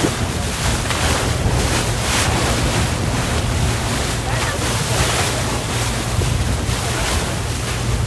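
Wind buffeting the microphone and water rushing past a speedboat under way, with a steady low drone from its engine underneath.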